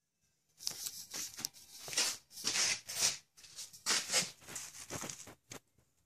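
Irregular rustling and scuffing noises, a string of short scratchy bursts starting about half a second in and thinning to a few faint ticks near the end.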